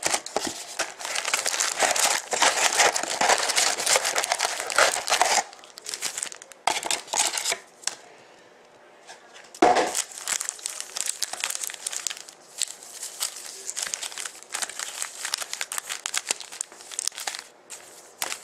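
Foil trading-card packs crinkling as they are pulled from the box and handled, with dense crinkling for the first five seconds, a lull with a few short crinkles in the middle, then more crinkling from about ten seconds in.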